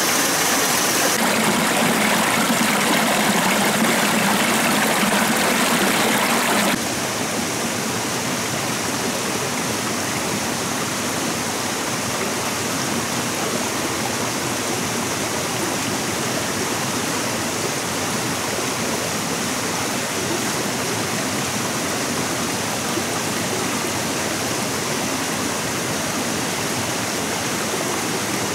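Steady rush of flowing stream water, a little quieter from about seven seconds in.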